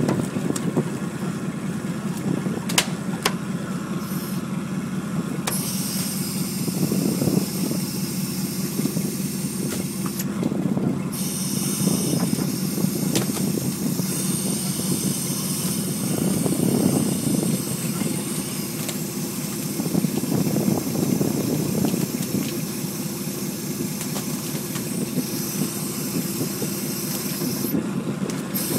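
Steady drone of a gillnet boat's engine and hydraulic net reel as the net is hauled in, with a hiss over it that drops out briefly a few times.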